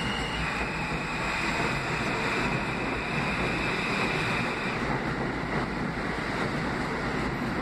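R160B subway train cars pulling out and rolling past close by: a steady rushing rumble of wheels on rail, with a faint high whine that fades out about five seconds in.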